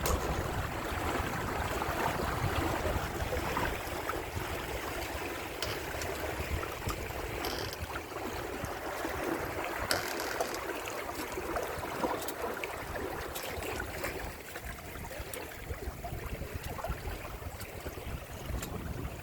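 Water rushing and splashing along the hulls of a Windrider 17 trimaran under way, with wind rumbling on the microphone, strongest in the first few seconds.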